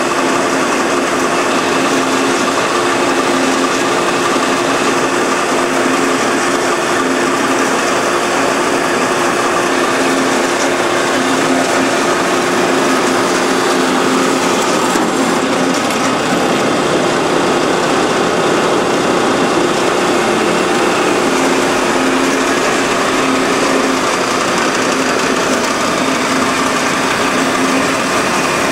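Kalamazoo AH9AW automatic horizontal band saw running steadily under power, its blade cutting short slugs off bar stock dry, without coolant. A steady machine noise with a few even hum tones.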